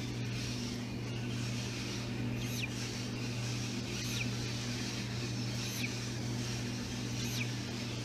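A parrot chick peeping from inside its pipped egg during hatching: four short, high peeps, each falling in pitch, about a second and a half apart, over a steady low hum.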